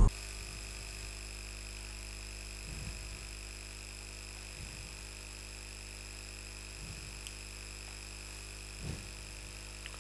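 Steady low electrical hum with a few thin, steady high-pitched tones: the room tone of the recording. Four faint soft thumps come through it at intervals of about two seconds.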